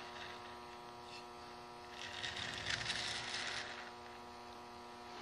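Faint, steady electrical hum made of several even tones, with a soft hiss above it that grows louder from about two to four seconds in.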